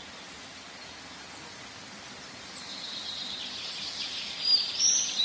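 Birds chirping over a steady rushing noise. The chirping grows louder from about halfway, and quick high calls come near the end.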